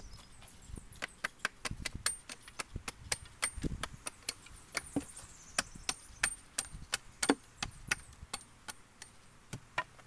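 Hatchet chopping wood in quick, irregular sharp strokes, roughly two or three a second. A bird sings a falling trill about halfway through.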